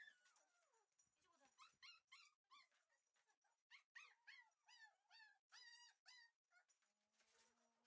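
Shiba Inu puppy whining in a quick series of short, faint, high-pitched cries, each rising and falling in pitch, about a dozen of them from a second or so in until near the end.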